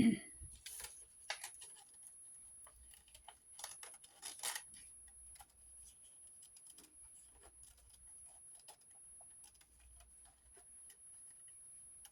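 Scissors cutting paper: faint, scattered snips and small paper rustles, a couple of them louder about a second in and around four and a half seconds in.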